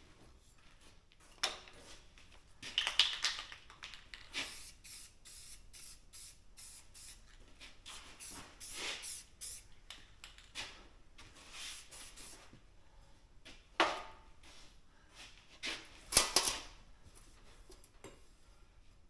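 Aerosol spray paint can hissing in short, irregular bursts, the loudest about three seconds in and again near the end.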